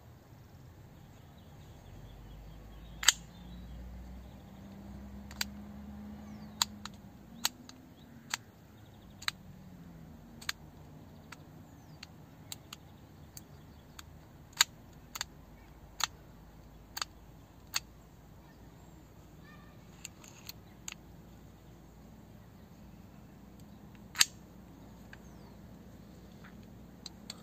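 Sharp, irregular metallic clicks and taps from handling a vintage Industar-29 camera lens, its rings and metal barrel clicking as it is turned in the hands; three clicks stand out as louder.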